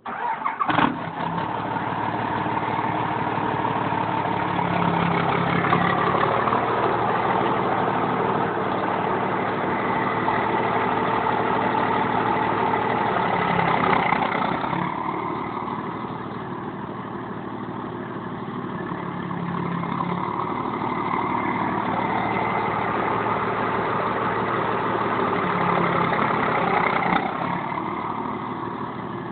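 Dodge 3500's straight-piped 12-valve Cummins inline-six diesel firing up and running at idle, its level dipping about halfway through and again near the end. The owner suspects a misfire from a bad injector.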